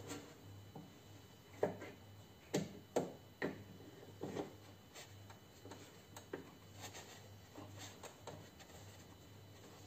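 Hands working inside a stripped Peugeot 407 front door, knocking and clicking the plastic and metal parts of the window regulator rail and glass. A handful of sharp knocks come in the first half, with lighter clicks after.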